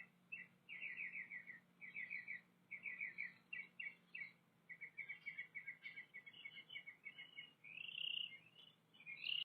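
Faint bird chirping: quick runs of short chirps, several a second, with a longer, higher note near the end, over a steady low hum.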